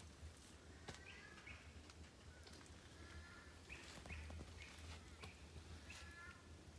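Near silence: faint outdoor ambience with distant birds calling, a scatter of short chirps and a few longer wavering calls.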